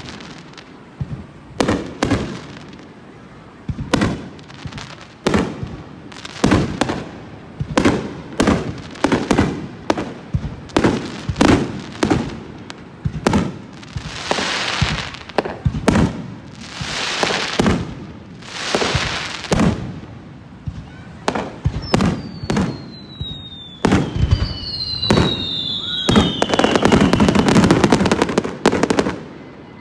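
Aerial fireworks bursting overhead, with sharp bangs one or two a second. About halfway through come three long hisses, then a couple of whistles falling in pitch. Near the end a dense barrage of bangs and crackle, the loudest part, builds to a finale and stops.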